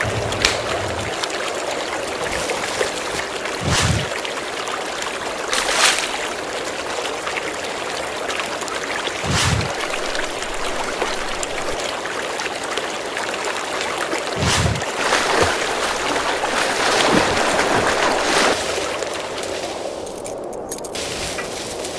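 Steady rushing of running water like a stream, with a few soft low thumps spaced several seconds apart.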